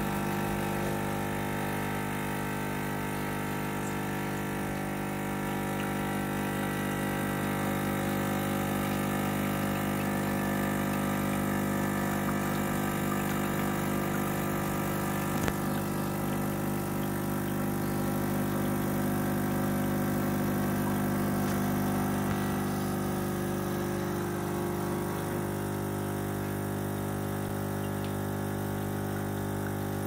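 Whirlpool espresso machine's pump running with a steady hum while it pushes hot water through the ground coffee and brews into the cup. There is a single click about halfway through, and part of the hum drops away near the end.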